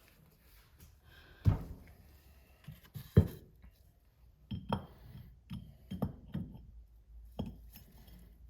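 Metal turbocharger parts clinking and knocking against each other as they are handled and fitted during reassembly: two louder knocks in the first few seconds, then a run of lighter clinks with a brief metallic ring.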